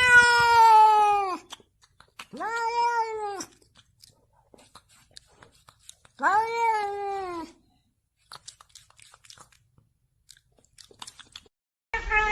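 Domestic cat meowing three times, long drawn-out meows that dip slightly in pitch, a few seconds apart. After the third, faint irregular clicks.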